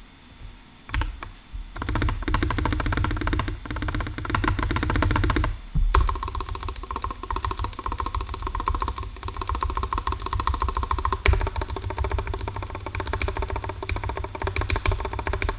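Rapid, nearly continuous keystrokes on a mechanical keyboard with a brass plate and stock, factory-lubed Banana Split switches under PBT keycaps, with a short pause about six seconds in. Over the key clicks the computer plays its error alert tone again and again, as the keypresses land with no text field to type into.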